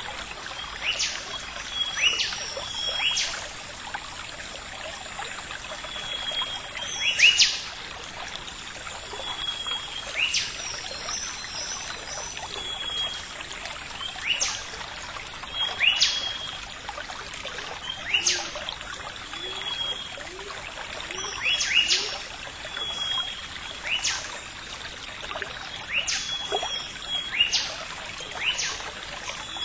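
Forest ambience of calling birds: sharp downward-sweeping whistles every second or two and short high piping notes, over a steady background hiss.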